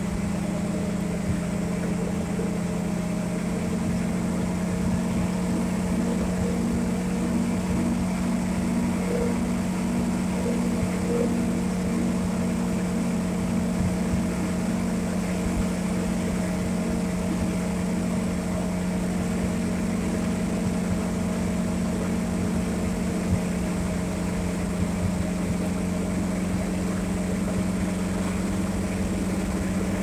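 ATV engine running steadily at road speed, a constant even drone, with wind rushing past the open vehicle.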